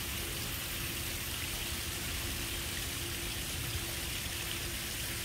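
Steady, even outdoor hiss with a faint steady hum underneath.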